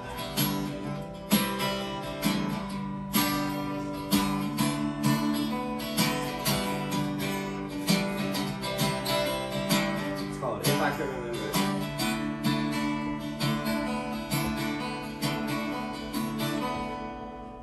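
Acoustic guitar strummed in steady chords, the instrumental intro to a song; the strumming stops and the last chord fades near the end.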